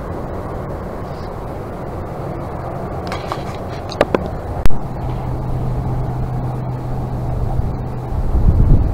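Steady rushing outdoor noise of wind and river water, with a few sharp clicks and knocks about four to five seconds in. A low steady hum runs from about five to eight seconds, and near the end wind buffets the microphone with a low rumble.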